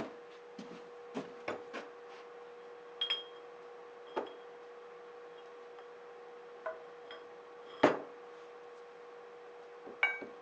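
Heavy steel weights and a sledgehammer being set down on a wooden glue-up jig: scattered knocks and metal clinks, some ringing briefly, the loudest about eight seconds in. A steady hum runs underneath.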